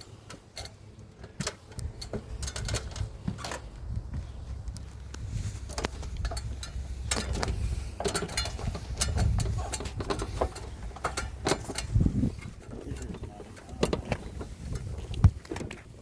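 Footsteps and scuffs of a roofer walking up a roof of CertainTeed XT25 asphalt shingles: irregular short knocks and scrapes over a low rumble on the microphone, with a sharper knock a little before the end.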